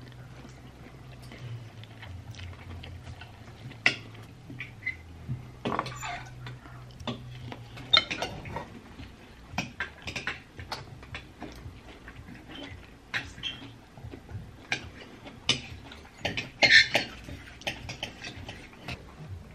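Metal knife and forks clinking and scraping against a ceramic plate of spaghetti while eating, in irregular sharp clinks, the loudest about eight seconds in and near the end.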